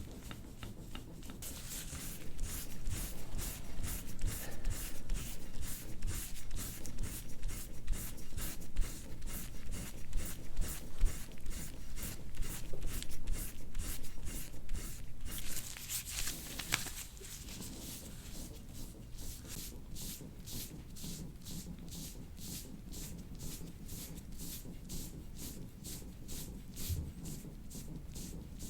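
Rhythmic rubbing strokes of hands working over a body, about two to three a second, a little louder in the first half.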